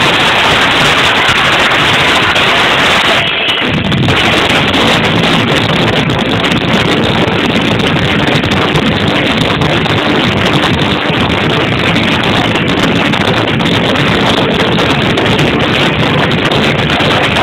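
Loud music over a club sound system, captured as a dense, muddy wash with no clear melody standing out. It dips briefly about three seconds in.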